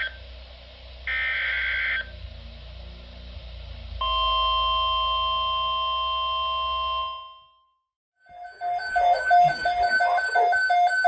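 Emergency Alert System tones: a short burst of SAME data tones, then a steady attention tone for about three seconds, which cuts out. After a brief gap, a rapidly pulsing electronic alert beep starts.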